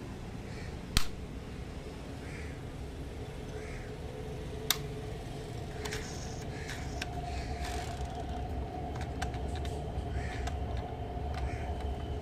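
Sharp click of a diecast Nissan Patrol model's door snapping shut about a second in, a second sharp click a few seconds later, then small clicks and taps from the model being handled, over a steady low rumble.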